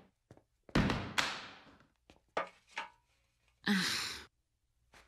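Cartoon-foley metal restroom stall door swinging shut with a loud thunk that rings off for about a second. Two small clicks follow, then a sigh about three and a half seconds in.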